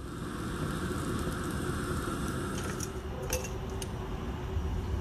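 Steady rush of a gas camp stove burner. About three seconds in come a few light metallic clinks as metal tongs set charcoal briquettes on the cast iron Dutch oven lid.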